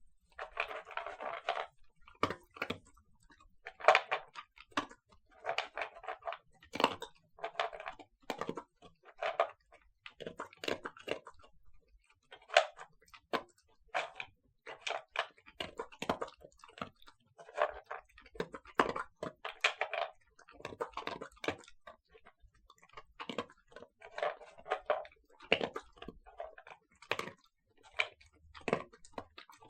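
Dog eating dry kibble from a plastic bowl: irregular bouts of crunching and chewing with sharp clicks as the pieces crack, broken by short pauses.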